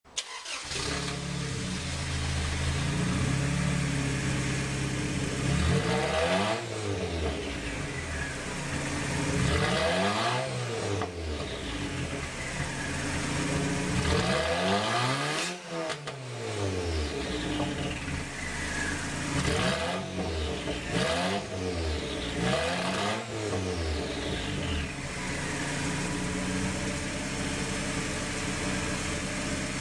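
Turbocharged Toyota 2RZ-FE 2.4-litre four-cylinder in a Tacoma, idling through a 2.5-inch straight-pipe exhaust with no muffler and revved several times, each rev rising and falling back to idle, the biggest about halfway through.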